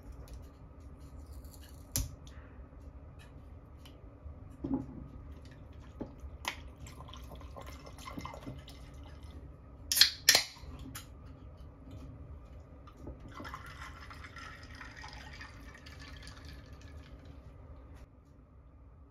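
Can of sparkling water cracked open with two sharp pops about ten seconds in, then fizzing for a few seconds as it is poured over ice in a glass. Before that, light clicks and a soft knock of things being handled on the counter.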